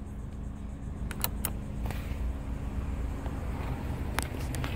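A few light clicks and taps from a hand working plastic cargo-area trim and its button, over a steady low rumble.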